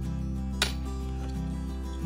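Background music with held bass and chord notes and one sharp percussive hit just over half a second in.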